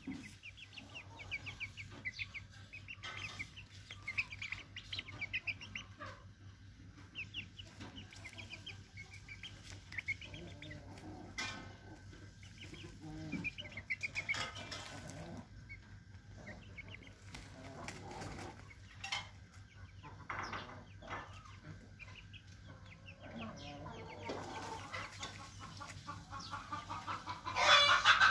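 Young chickens cheeping and clucking, with runs of quick, high, repeated chirps. The calls get louder about a second before the end.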